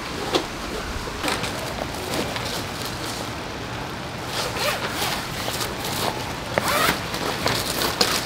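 Zipper on a rooftop-tent annex being pulled in several short strokes, with the nylon fabric rustling.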